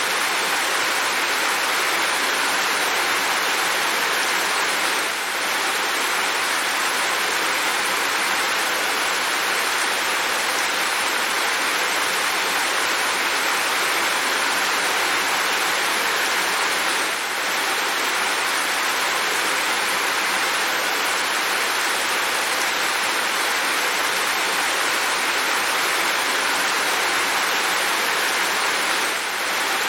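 Steady heavy rain, an even hiss of falling drops. The level dips briefly three times, about twelve seconds apart.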